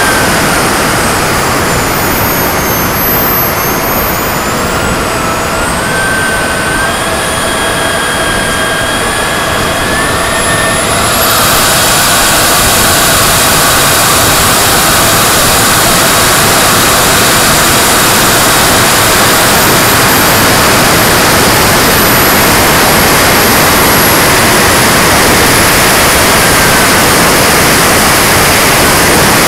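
Model turbine engine of an RC jet in flight, heard from a camera on its fuselage: a high whine over a loud rush of air noise. The whine glides up and down, and about 11 seconds in it jumps sharply higher as the whole sound gets louder and then holds steady.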